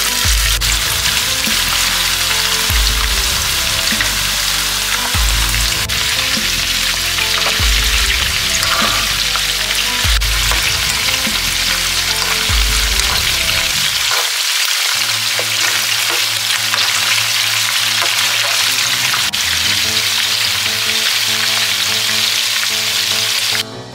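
Meatballs frying in hot oil in a nonstick pan, a steady, loud sizzle, with a fork turning them midway. Low background music runs underneath, and the sizzle cuts off suddenly near the end.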